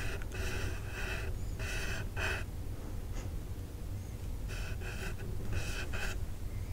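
Makeup brush stroking across the microphone in a series of soft swishes, each about half a second long, with a pause of about two seconds in the middle.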